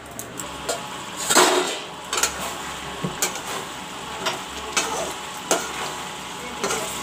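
Metal spoon stirring thick chicken curry in an aluminium kadai: scraping and knocking against the pan about once a second, over a steady sizzle of the reduced gravy.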